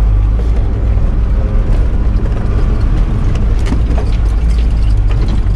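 Mercedes-Benz 711D van's diesel engine running steadily at low speed on a rough dirt track, with scattered knocks and rattles over it.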